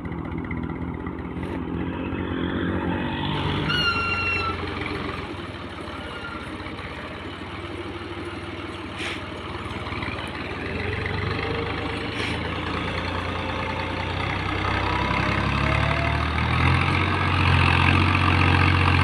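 Farm tractor's diesel engine working under load as it pulls a heavily overloaded sugarcane trolley, getting louder in the last few seconds.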